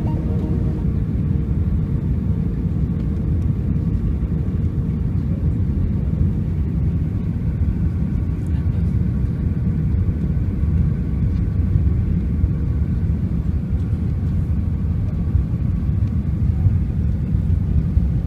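Airliner cabin noise during the landing approach: a steady low rumble of the jet engines and rushing air, with a faint steady hum above it.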